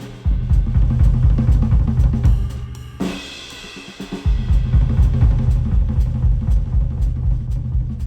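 Electronic-style music with a full drum kit and heavy bass, played back through HIFIMAN Edition XV headphones and picked up by microphones at the earcups. The bass drops out about three seconds in and comes back a second later.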